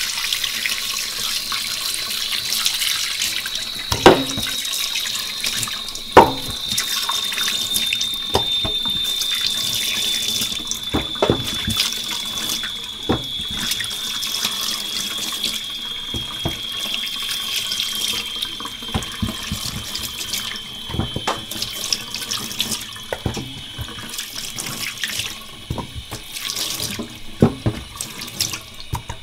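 Kitchen tap running into a stainless steel sink while pieces of fish are rinsed by hand under the stream, with splashing. A high thin whistle slowly drops in pitch throughout. Two sharp knocks come about four and six seconds in, with lighter clatters scattered through.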